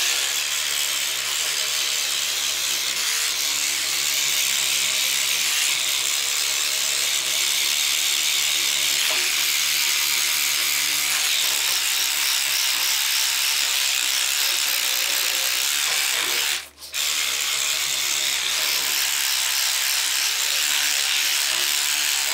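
Handheld electric scrubbing brush buzzing steadily as its bristles scrub cleaning paste into burn marks on a painted metal radiator. The sound cuts out for a moment about 17 seconds in.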